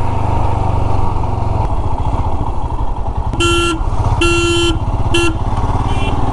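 Royal Enfield Himalayan's 411 cc single-cylinder engine running at road speed, heard from the rider's seat. About three and a half seconds in, a horn sounds three short single-pitched blasts, the last the shortest, while overtaking a car.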